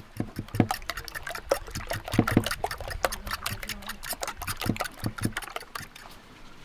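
Metal fork beating raw eggs in a wooden bowl: rapid, irregular clicks of the fork against the bowl with liquid sloshing, stopping about six seconds in.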